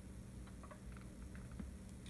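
Faint, irregular light clicks and ticks of a precision screwdriver and small metal phone parts as tiny screws go into an iPhone housing, over a steady low hum.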